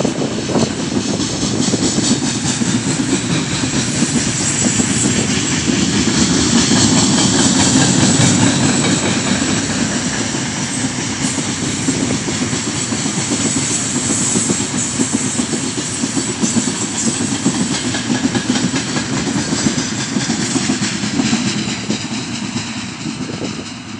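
Heavy freight train of open gondola wagons rolling past close by at speed: a steady loud rumble with the rapid clatter of wagon wheels over the rails, easing near the end as the last wagons go by.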